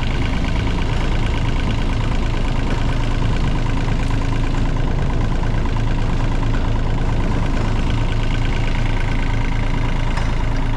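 Case mini digger's diesel engine idling steadily.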